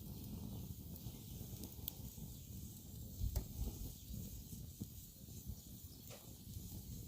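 Wood fire burning with a low rumble and a few scattered sharp crackles and pops.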